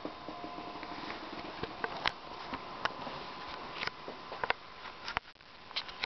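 Handling noise of a handheld camera being swung about: scattered small sharp clicks and rustles, unevenly spaced, over a steady background hiss with a faint high hum.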